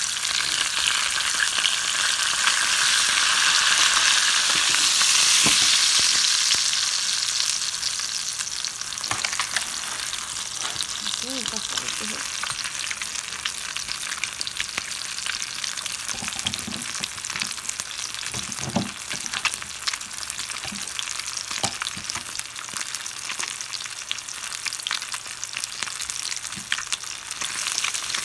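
Whole koi fish (climbing perch) shallow-frying in hot oil in a pan, a steady sizzle with dense crackling spatters. It is loudest over the first several seconds, then settles to a lower sizzle.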